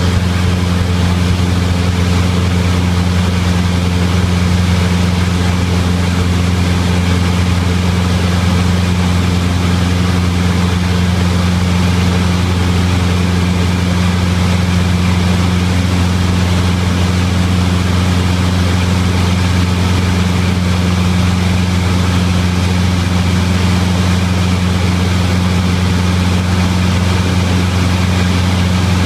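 Cessna 172's piston engine and propeller running steadily with a deep, even hum, heard from inside the cabin.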